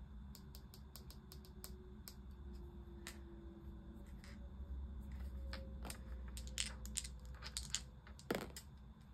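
Quiet desk handling: scattered light clicks and taps as a felt-tip marker crosses numbers off a paper card and two dice are picked up in the hand, with one sharper knock near the end.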